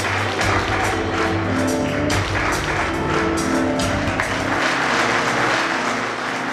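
Music with notes and a bass line, over audience applause; the bass drops out about four and a half seconds in.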